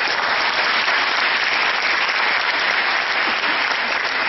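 Church congregation applauding steadily after a speech.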